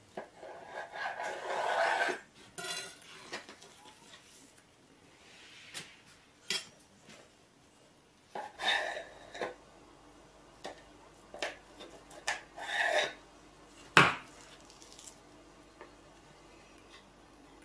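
Kitchenware being handled: dishes and utensils clinking and knocking now and then, with a stretch of scraping in the first couple of seconds and one sharp knock near the end.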